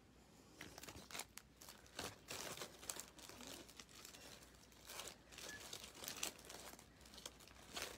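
Faint, irregular rustling and clicking of stamp-set packages being handled and sorted through.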